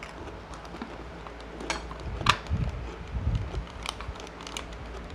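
Eating sounds: chewing, with a few sharp clicks and clinks of chopsticks and utensils against dishes, the loudest about two seconds in, over a low steady hum.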